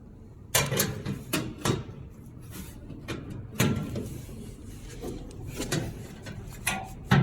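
A run of knocks and clatters, about seven spread unevenly, as a large change plate is handled and seated into its position on a packaging machine.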